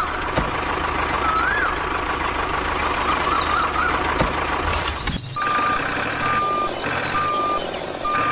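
Truck engine noise with a couple of short rising-and-falling whoops, then, after a sudden change about five seconds in, a truck's reversing alarm beeping four times at an even pace.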